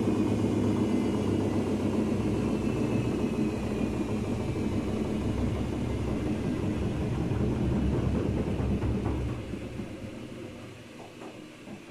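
Daewoo DWD-FT1013 washing machine spinning at 800 rpm with an unbalanced load: a steady low rumble with a motor whine that slowly falls in pitch. About nine seconds in the sound dies away as the drum spins down.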